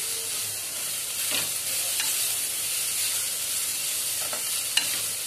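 Onion and cashew mixture sizzling in a frying pan while a spatula stirs and scrapes through it, with a short sharp knock near the end.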